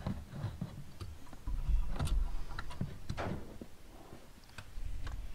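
Light plastic clicks and knocks of a D1S xenon headlight bulb being wiggled and pulled out of a Mercedes W204 headlight housing, with low rumbling handling noise from the hand working in the tight space.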